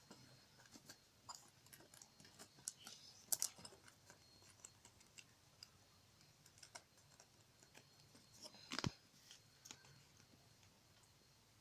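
Faint, scattered clicks and light taps of handling a small metal keychain charm on its cardboard backing, with two sharper clicks about three and a half seconds and nearly nine seconds in.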